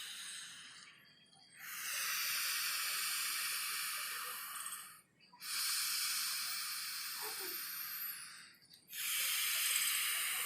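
Slow, audible nasal breathing through one nostril at a time in nadi shodhana (alternate-nostril) pranayama. A breath trails off about a second in, then three long airy hisses of about three and a half seconds each follow, with short pauses between.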